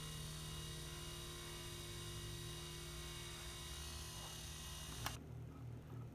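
A steady electrical hum with several fixed whining tones, cut off abruptly by a click about five seconds in; a faint low tone pulsing about twice a second follows.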